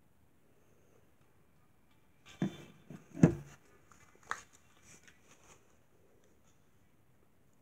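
A few short knocks and rustles of handling as over-ear headphones are lifted from the neck and put on, the loudest a little past three seconds in; quiet before and after.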